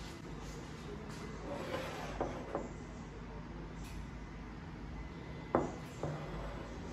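A ceramic mug holding a paper drip-bag coffee filter being picked up and handled, with a few light knocks and taps, then one sharp clack about five and a half seconds in as it is set down on the countertop, followed by a lighter knock. A steady low hum runs underneath.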